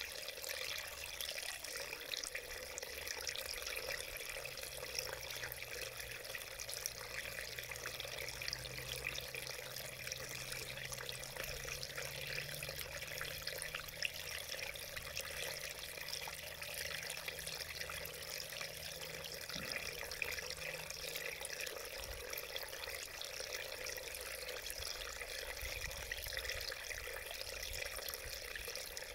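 Small mountain stream running over rocks: a steady babble and splash of shallow water.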